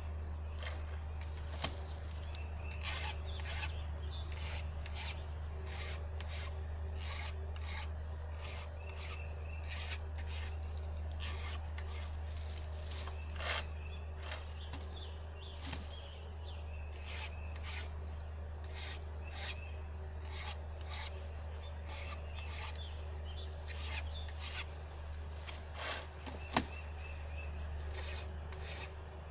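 Round file rasping across a chainsaw's chisel-chain cutters by hand, a steady run of push strokes about one to two a second, with a few sharper clicks of file against chain. A steady low hum runs underneath.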